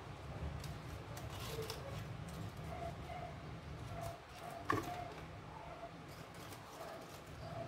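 Folded paper of an origami model rustling and clicking as it is flexed between the hands, with one sharper click about halfway through, over a steady low hum.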